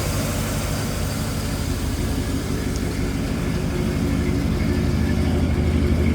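Chevrolet 327 small-block V8 with a custom camshaft idling steadily, growing a little louder toward the end.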